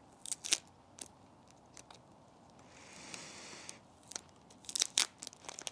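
Plastic packaging around a potted plant crackling and crinkling as fingernails pick at and peel it: a few sharp crackles, then a longer peeling rustle about three seconds in, then more crackles near the end.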